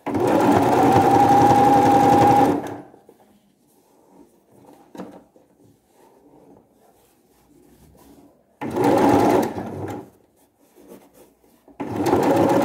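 Domestic electric sewing machine stitching a fabric hem in three runs: one of about two and a half seconds at the start, a short one about nine seconds in, and another starting near the end. The machine stands still in between.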